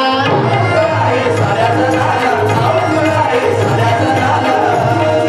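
Instrumental passage of a live Marathi devotional song: a melody instrument playing over a steady bass and drum beat, without singing.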